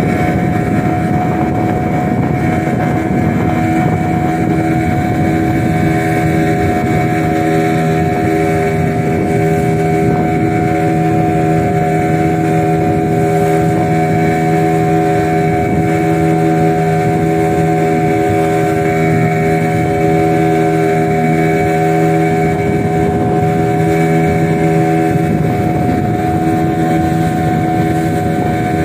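A motorboat's engine running steadily while the boat cruises, a constant drone that holds one pitch throughout.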